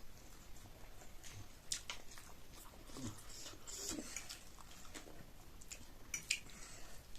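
Faint mouth sounds of eating chow mein: chewing and wet lip smacks, with scattered short clicks.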